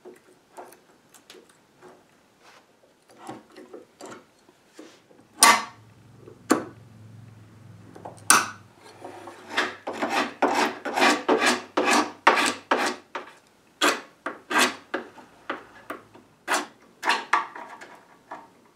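A stiff hand scraper is pushed in quick repeated strokes over the old wood at the top of a cabinet, scraping the surface clean. A few sharp cracks come first, as old nails are levered out of the wood with end nippers.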